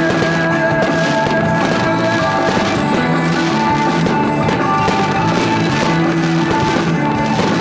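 Loud recorded rock-style music with drums and guitar, played over loudspeakers to accompany a fireworks show.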